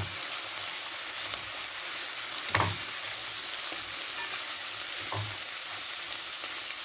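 Chopped onion, carrot and cabbage sizzling in a frying pan as they are stirred, with a few short knocks of the utensil against the pan.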